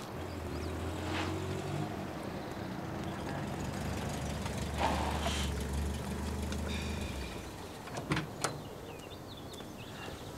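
A vintage GAZ-21 Volga sedan's engine running at a low idle as it pulls up, cutting off about seven seconds in, followed by a few sharp clicks of its door latch as the door is opened. Faint birdsong.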